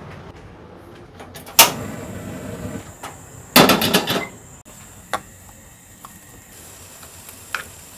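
A black iron wok set down on a gas stove's grate with a sharp metal clank that rings away over about a second. About three and a half seconds in comes a quick run of clicks as the stove's burner is lit.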